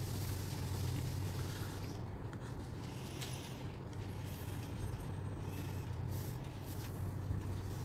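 Steady low background hum with a faint hiss, and a few faint clicks.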